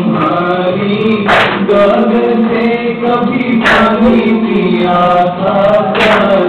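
Folk song sung in Gilgit-Baltistan and Chitrali style: a voice holding and bending long notes over a steady low tone, with a sharp percussive hit about every two and a half seconds, three times.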